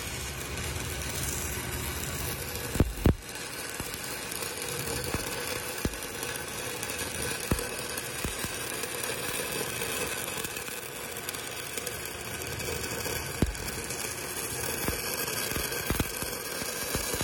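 Shielded metal arc (stick) welding with a 1/8-inch E6010 rod at about 88 amps, running the root pass on a six-inch pipe branch connection. The arc makes a steady hiss broken by a few sharper pops, the loudest about three seconds in.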